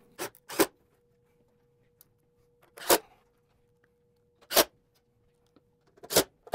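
About six short, sharp clacks spaced irregularly, from the metal strips of a door seal kit and a cordless drill being handled and set against a metal door frame while the kit is fitted.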